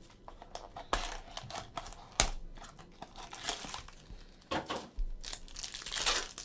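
A sealed trading-card pack wrapper being torn open and crinkled by hand, with a couple of sharp clicks of cards or the pack against the table early on, and the longest stretch of crinkling near the end.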